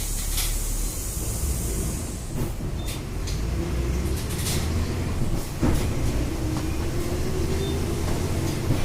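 Volksbus 17.230 EOD city bus running: a steady low diesel rumble with body rattles and knocks. A high air hiss fades out over the first two seconds, and a whine appears about three seconds in and climbs slightly in pitch.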